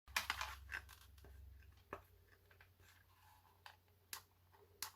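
Faint scattered clicks and light knocks of plastic telephone parts being handled, with a low hum for about the first second and a half.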